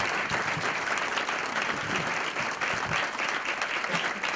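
Banquet audience applauding steadily, many people clapping at once.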